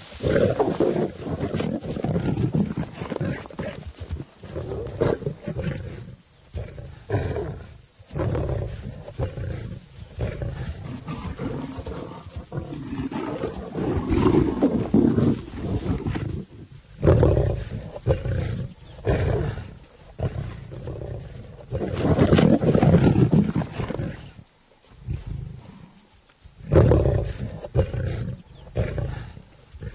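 A lioness and a male lion fighting, with repeated loud roars coming in irregular outbursts of a second or three, broken by brief lulls.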